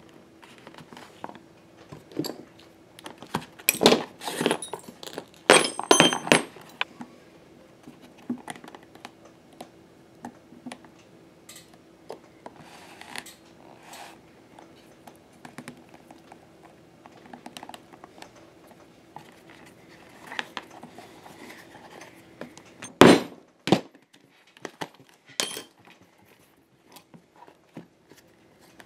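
Handling of a leather holster and small brass cartridges on a cutting mat: scattered clicks and metallic clinks, busiest a few seconds in and with one sharp knock near the end, over a faint steady hum.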